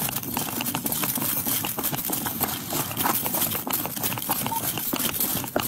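Running footsteps on pavement with clothing and gear rubbing and knocking against a chest-worn police body camera, a dense run of knocks and scuffs.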